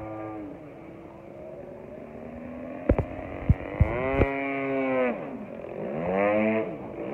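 The 120cc engine of a radio-controlled Laser aerobatic plane in flight, its pitch falling and rising several times as the plane manoeuvres. A few sharp pops come around the middle, as the engine note climbs back up.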